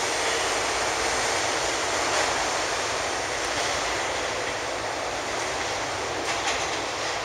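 New York City subway (1) local train pulling out of the station into the tunnel: a steady rumble of wheels on rail that slowly fades, with a few sharp clicks near the end.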